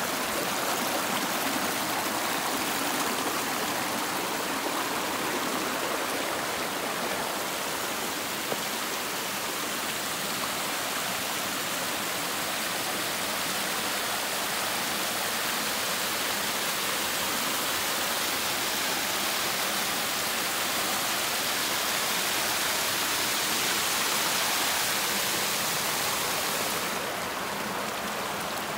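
Mountain stream rushing over rocks and small cascades, a steady even wash of water noise. It swells a little past the middle, and the high hiss eases near the end.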